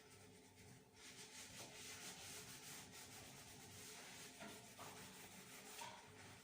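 Faint sanding sound of an abrasive rubbed over a surface, starting about a second in.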